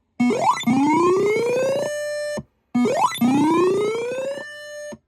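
Electronic tornado-siren sound played through the Uniden WX-100 radio's loudspeaker at full volume. It goes twice: each time a quick upward sweep, then a slower rising wail that settles on a steady note and cuts off suddenly.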